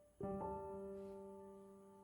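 Soft background piano music: a chord struck a fifth of a second in, a second note just after, left to ring and fade.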